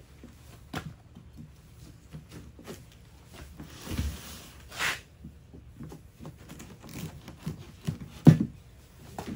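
A large kitchen knife cutting through the rind of a giant watermelon of about 20 kg, with scattered clicks and scrapes, two louder scraping sounds around the middle and a thump near the end.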